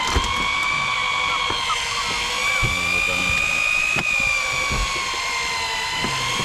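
A motor running with a steady high whine whose pitch wavers slightly, under a few scattered knocks and thumps.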